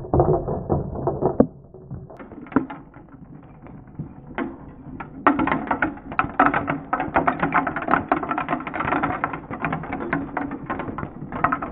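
Small plastic LEGO pieces raining down and clattering on hard boards and a heap of bricks: a dense run of irregular clicks and ticks that thins out a second or two in and builds up again about five seconds in.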